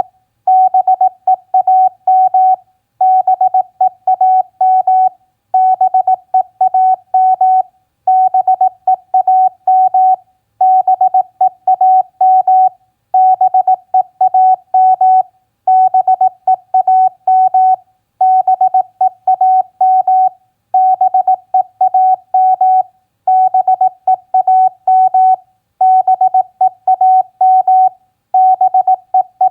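Morse code sent as a single-pitch beep tone at 18 words per minute: quick dots and dashes in word-length groups of about two and a half seconds, with short pauses between words.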